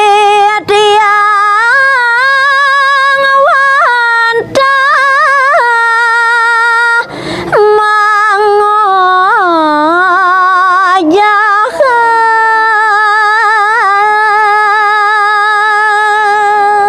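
A woman singing a verse of Balinese pupuh Sinom unaccompanied, holding long notes with wavering ornaments and pausing briefly for breath between phrases.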